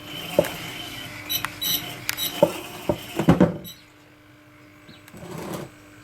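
Hydraulic system of a radio-controlled Liebherr 956 excavator model running with a steady whine, with several sharp metallic knocks and clicks from its working equipment. The running sound stops a little past halfway, and a short rustle follows near the end.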